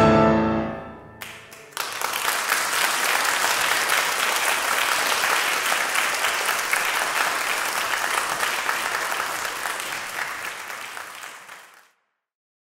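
The final chord of two grand pianos rings and dies away. About two seconds in, an audience breaks into applause, which holds steady for some ten seconds and then fades out.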